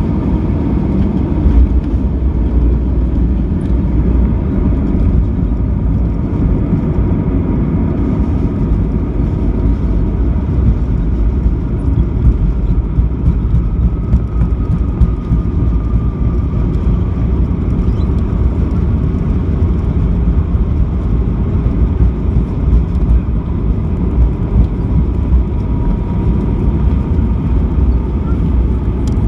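Airbus A320 cabin during landing and rollout: a loud, steady rumble of the jet engines and the wheels on the runway. A thump about a second and a half in as the wheels touch down, and a faint falling whine around the middle as the engines spool down.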